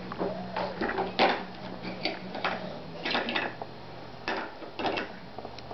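A Pomeranian sniffing and snuffling in short, irregular bursts with its nose pressed into a baby guinea pig's fur, over a faint steady low hum.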